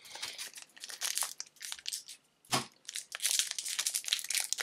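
Foil wrapper of a Disney Lorcana booster pack being torn open by hand and crinkled, a dense crackling that grows louder and busier over the second half. There is a single thump about halfway through.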